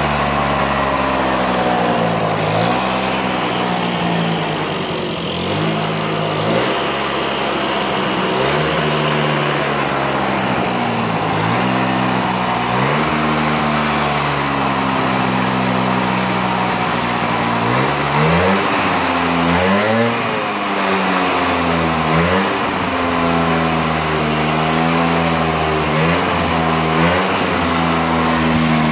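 Yamaha Passola SA50 scooter's small two-stroke engine running, its revs rising and falling again and again as the throttle is blipped. It won't idle, which the owner puts down to dirt still in one of the carburettor jets.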